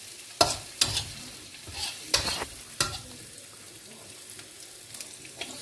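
Metal spatula scraping and knocking around a wok while chopped onion, garlic and chilli are stir-fried, a faint sizzle underneath. The scrapes come irregularly, a handful of sharp strokes a second or so apart.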